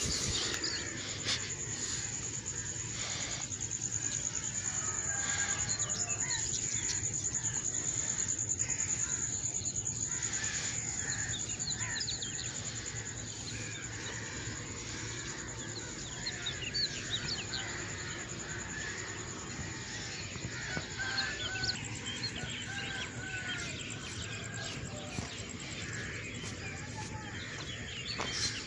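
Outdoor ambience of many birds chirping and calling in short, overlapping notes, over a steady high-pitched tone that runs throughout.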